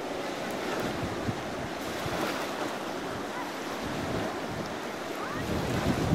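Wind buffeting the microphone over the steady rush of the Yellowstone River's current, the wind gusting harder near the end.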